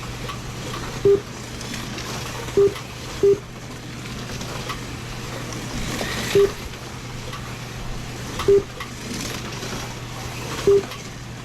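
Race lap-timing system giving short single-pitch electronic beeps, six in all at irregular intervals, as cars cross the line during a heat. A steady low hum runs underneath.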